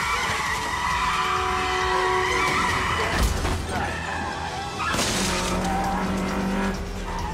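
Car tyres screeching in a skid. A crash comes about three seconds in and a second sharp noisy hit near five seconds, all over a film score.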